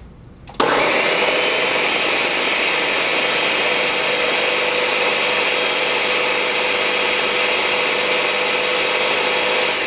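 Countertop blender switching on about half a second in, its motor whine rising briefly as it spins up, then running steadily at high speed as it purées diced silken tofu and melted chocolate into a smooth filling.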